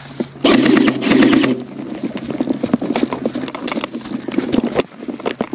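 Footsteps crunching through dry grass and leaves, irregular crackling steps, with a loud rattling burst lasting about a second, about half a second in.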